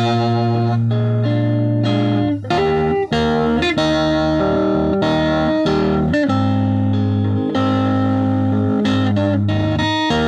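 Electric guitar playing a melody of held, ringing notes, with short breaks between phrases.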